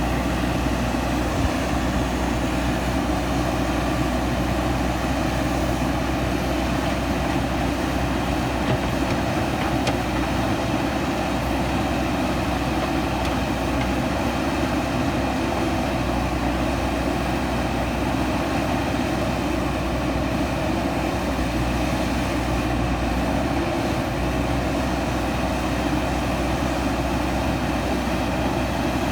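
JCB 3DX backhoe loader's diesel engine running steadily under work, an even low drone.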